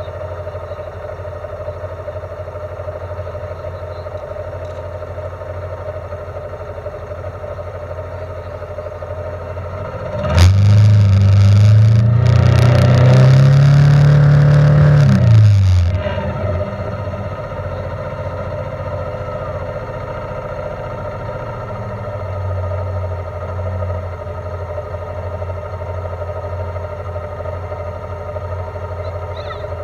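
Vehicle engine running steadily, then revved hard for about five seconds about a third of the way in, its pitch climbing and then dropping back before it settles to the steady running note again.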